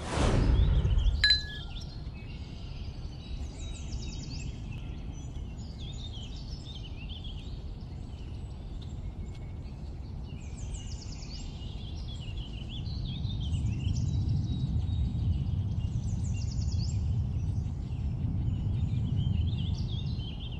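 Many small birds chirping and twittering in quick, overlapping calls over a steady low rumble, a morning ambience. It opens with a loud falling whoosh that cuts off about a second in, with a brief high ping.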